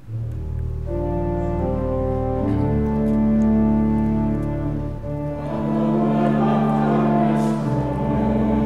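Church organ playing sustained chords with deep bass notes, starting suddenly: the introduction to a hymn verse. The sound grows fuller about halfway through.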